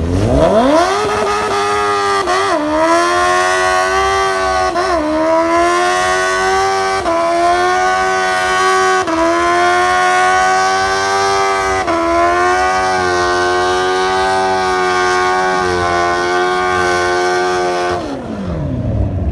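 Kawasaki Ninja sport-bike engine at full throttle, pulling up through the gears, its pitch dipping briefly at each upshift. Near the end the throttle closes and the engine note falls away steeply.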